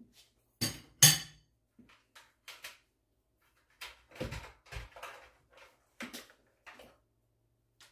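A few separate knocks and thuds of things being handled on a kitchen counter. The loudest is a sharp knock about a second in, and there are lighter knocks with a couple of dull thumps around four to five seconds in.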